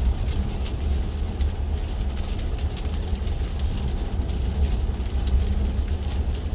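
Road and tyre noise inside the cabin of an electric Tesla Model 3 driving on a wet road: a steady low rumble with a hiss and scattered light ticks.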